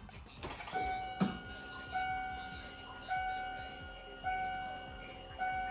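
Car dashboard warning chime ringing five times, about once a second, with the key switched on just before cranking, over a faint steady high whine. A couple of sharp clicks come near the start.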